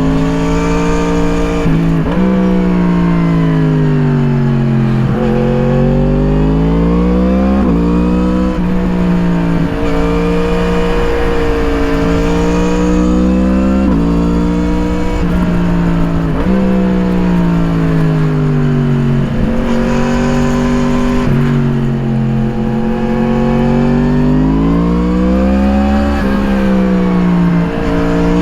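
Yamaha MT-10's crossplane inline-four through an Akrapovič slip-on exhaust, ridden hard: the engine note climbs under acceleration and breaks off sharply at each gear change about a dozen times, sinking away when the throttle closes for corners and pulling up again. Wind rush runs underneath.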